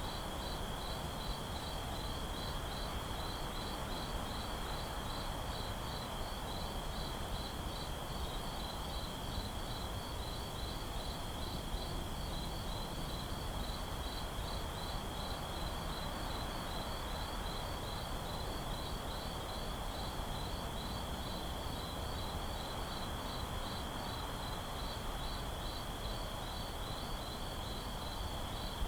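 Night ambience of crickets: one steady high trill with a second cricket chirping about three times a second just above it, over a low, even hush.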